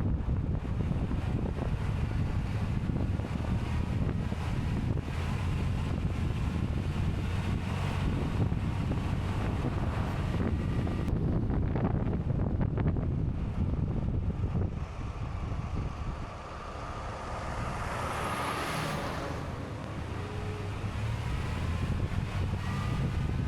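A vehicle running along steadily, with wind buffeting the microphone; partway through the rumble drops back and a short whooshing swell passes.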